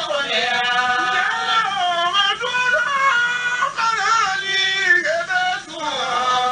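A single voice singing in long, wavering, ornamented melodic phrases, with short breaks about two thirds of the way through and near the end.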